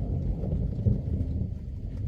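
Low, rolling rumble of thunder during a thunderstorm.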